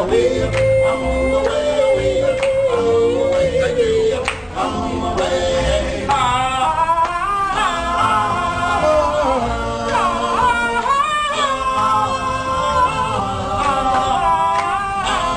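A group of men singing a cappella. One voice holds a long note for the first few seconds, then several voices join in close harmony.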